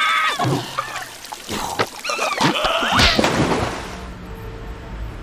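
Cartoon soundtrack: short squeaky wordless character voices that bend up and down in pitch, mixed with a few sharp clicks, giving way after about three seconds to a steady low hum and hiss.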